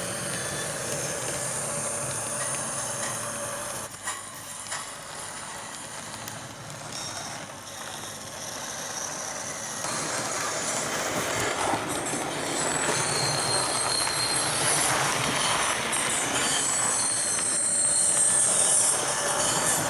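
Digital train sounds from a Hornby HM7000 Bluetooth sound decoder, played through a OO gauge model locomotive's small speaker. The sound grows louder about halfway through, and thin high squeals come in during the second half.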